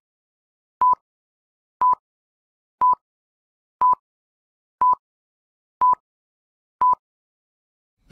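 Film-leader countdown beeps: a short, steady electronic tone once every second, about eight in all, with silence between them.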